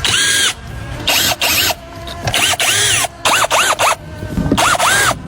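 A handheld power tool, such as a power ratchet or impact driver, run in five short bursts, each winding up and then back down in pitch, with background music underneath.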